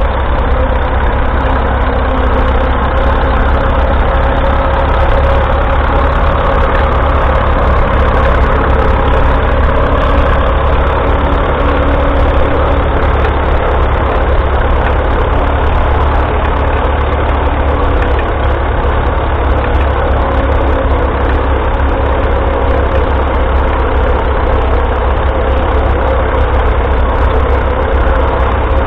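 1941 Fordson Model N tractor's 4.4-litre four-cylinder TVO engine idling steadily.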